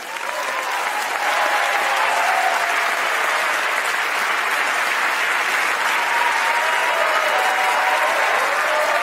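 Large theatre audience applauding. The applause builds over the first second and then holds steady.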